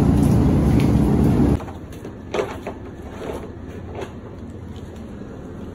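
Steady, loud low rumble of a walk-in freezer's refrigeration fans, which stops abruptly about a second and a half in. A quieter background follows with a few light knocks and clicks.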